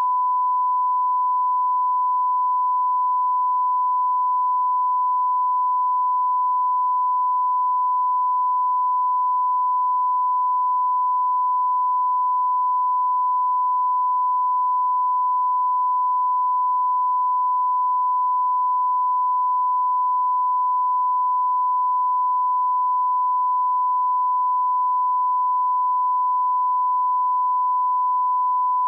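A steady, unbroken sine-wave test tone at one constant pitch and level: the line-up reference tone laid at the head of an edited video master, normally alongside colour bars.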